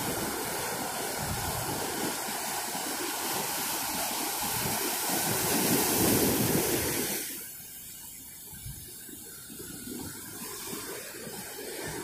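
Ocean surf washing on the shore: a steady rushing that swells, drops away suddenly a little past halfway, then builds again near the end.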